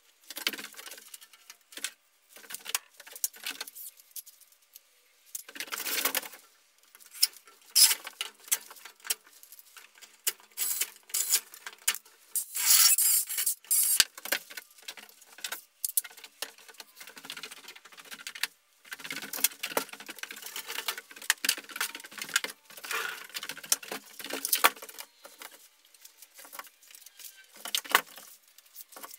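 Irregular clicks, taps, rattles and scraping of hands-on drywall work as a ceiling sheet is positioned on a drywall lift, with a denser hissing rattle about 12 to 13 seconds in.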